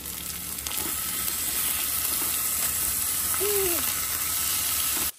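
Food sizzling loudly on a hot cooking surface, a steady crackling hiss that cuts off suddenly near the end.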